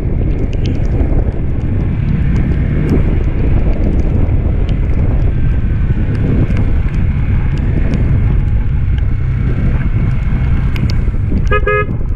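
Motorcycle riding: the engine running under the steady rush of wind on the microphone. Near the end, a horn gives a brief toot in a few quick pulses.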